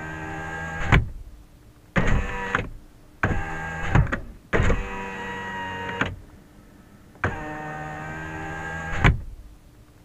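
Car power window motor running in five separate runs, each a steady whine lasting between half a second and two seconds, with short gaps between. Several runs end in a sharp thump: the glass being driven open and shut.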